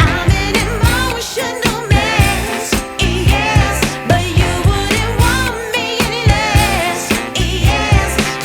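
A pop song with a singer over a heavy, pounding bass beat, about two beats a second, played loud through a carnival sound-system rig.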